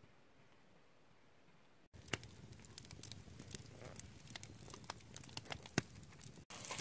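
A wood campfire crackling, with many sharp irregular pops, after about two seconds of faint outdoor hush. Right at the end, the steady hiss of food frying in a pot begins.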